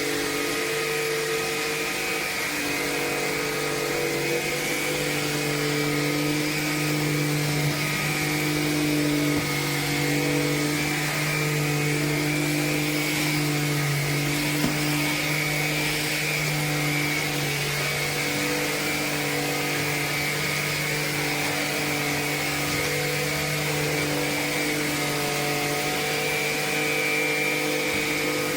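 Tineco A30S cordless stick vacuum cleaner running steadily: an even motor hum with a hiss above it.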